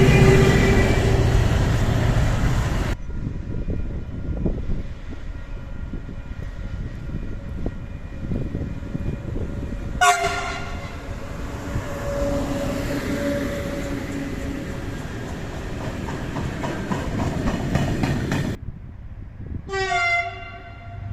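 Train horns sounding as trains pass: a horn chord over the noise of a passing train at the start, a short horn blast about halfway, followed by the train running by on the rails, and another short horn blast near the end.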